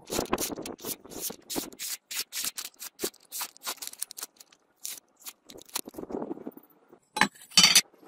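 A sharpened karambit blade ground from bearing steel slicing through a sheet of paper, making a quick irregular run of short, crisp cutting sounds. Near the end come two louder scuffs.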